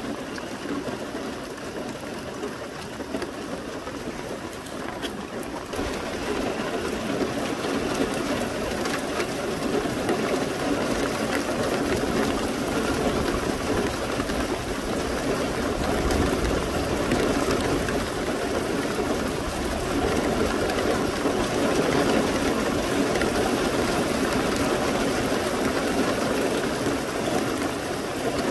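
Heavy rain falling steadily, growing louder about six seconds in.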